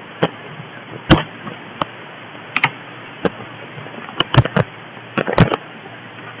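A series of about a dozen sharp, irregular clicks and knocks over a steady hiss.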